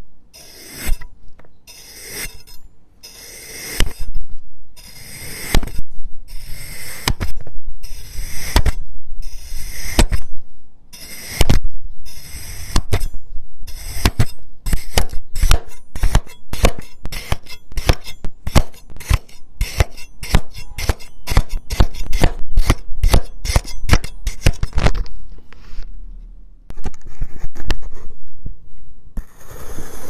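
A steel knife slicing through kinetic sand, each stroke a gritty crunching scrape ending on the plastic cutting board, picked up close by a microphone clipped to the knife. The slices come about once a second at first, then much faster, two or three a second, before easing off near the end.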